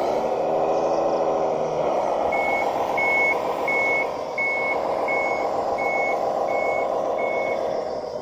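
1:12-scale bulldozer model with a simulated diesel engine running: it drops in pitch at the start and rises again about two seconds in. A reversing alarm then beeps eight times, about one and a half beeps a second, as the dozer backs up.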